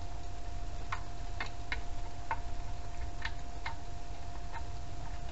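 About six light, irregularly spaced clicks and taps from hand work on a small engine's mounting, over a steady low rumble and a faint steady whine.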